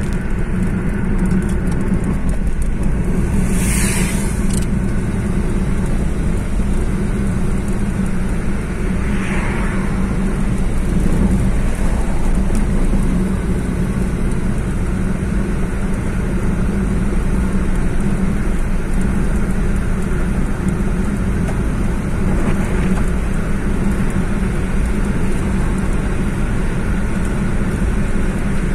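Steady engine and tyre noise inside a moving car's cabin, with a constant low hum. Two short hissing swells pass over it, one about four seconds in and a fainter one about nine seconds in.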